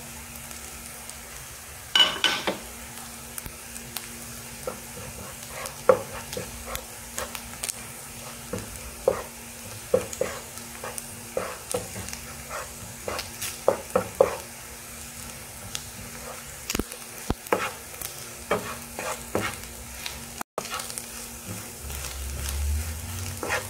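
Wooden spoon stirring and scraping food in a nonstick frying pan, with irregular knocks of the spoon against the pan over a steady frying sizzle. Spice powders are being sautéed with chicken, carrot and egg. The stirring gets busier near the end.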